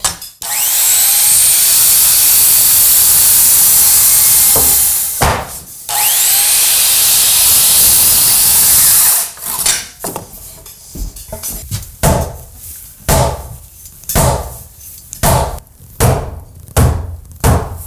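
Worm-drive circular saw cutting through a thick wooden post, in two passes of about five and three seconds. After it, a run of knocks about one a second as the post is fitted.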